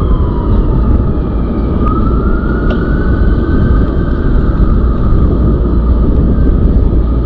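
Steady wind rumble on the microphone of a moving e-bike, with an emergency vehicle siren wailing over it: its pitch falls at the start, then rises again about two seconds in and holds.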